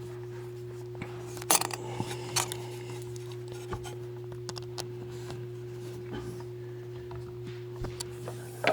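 A few light metallic clicks and clinks of metal parts and tools being handled on an industrial sewing machine, the sharpest about one and a half seconds in, over a steady low hum.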